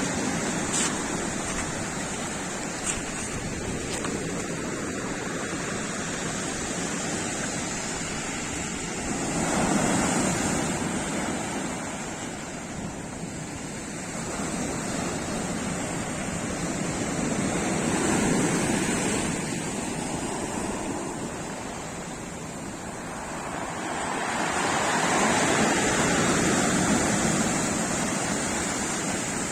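Sea surf breaking on the shore, a steady wash that swells into louder surges about every seven or eight seconds as waves come in.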